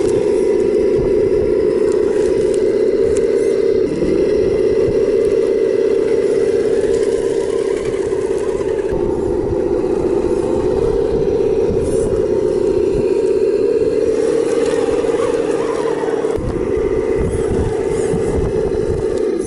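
A radio-controlled Land Rover Defender D90 scale crawler running through mud with a steady mechanical whine. The whine dips briefly about 4 seconds in and again about 16 seconds in as the throttle changes. Wind rumbles on the microphone underneath.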